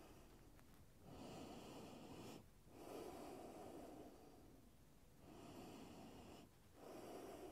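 A woman breathing slowly and faintly in and out, about four breaths, each a second or more long with short pauses between them.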